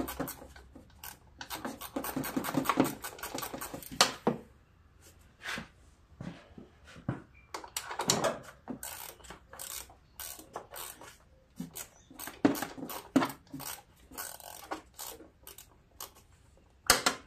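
Ratchet clicking in quick runs as bolts are backed out of a riding mower's engine shroud, with scattered metal clicks and taps between and a sharper knock near the end.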